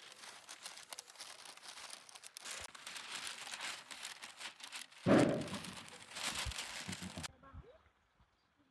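Crinkling and rustling of wrapping being handled, with a louder thump about five seconds in; the sound cuts off suddenly after about seven seconds.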